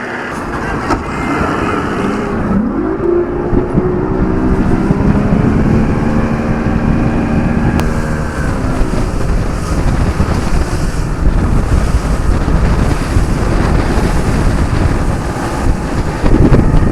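Boat motor running with wind rumbling on the microphone. Its pitch rises about two and a half seconds in, holds steady, then fades after about eight seconds. A stronger gust of wind comes near the end.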